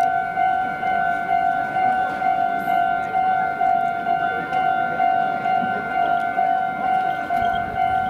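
Japanese railway level-crossing alarm ringing its rapid, evenly repeating electronic ding, warning that a train is approaching.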